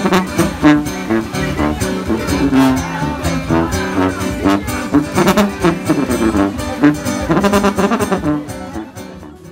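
Live band music led by a sousaphone playing the bass line, with a strummed guitar. The music fades down near the end.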